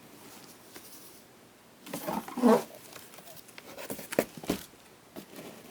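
Handling noises: rustling with a louder scrape about two seconds in and a couple of sharp knocks a little after four seconds.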